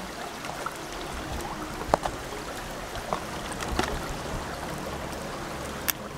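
Cream heating in a cast-iron pot set in the embers of a wood fire: a steady hiss with scattered crackles and pops, the sharpest about two seconds in and near the end.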